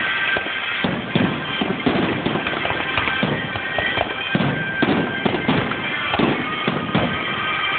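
Fireworks bursting in an irregular string of bangs, several a second, over music playing throughout, recorded on a phone.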